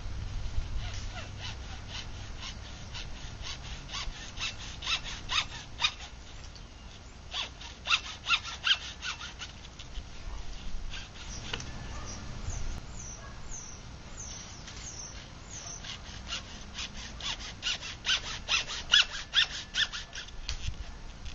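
PVC pipe being cut with a hand saw: runs of quick, even strokes in three bursts, about a second in, around eight seconds in, and again for the last five seconds.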